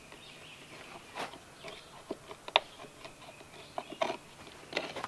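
Hand chisel cutting into a small carved wooden dish: irregular sharp cracks and taps as the blade bites and shaves the wood, the loudest about halfway through.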